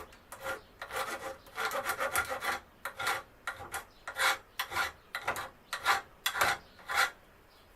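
A small hand file rasping back and forth over the broken end of a fishing rod tip, tidying it up so a new rod tip can fit over it. The strokes are short and quick, unevenly spaced, and stop about seven seconds in.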